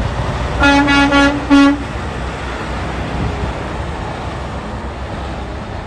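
Truck horn giving three short toots, over a steady low engine rumble that carries on after them.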